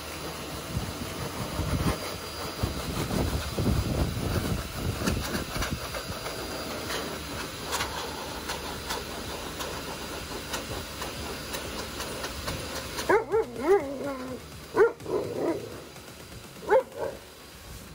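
A handheld blower runs, aimed at a malamute's wet fur, then cuts off about thirteen seconds in. An Alaskan malamute then vocalizes in a string of short howls that slide up and down in pitch.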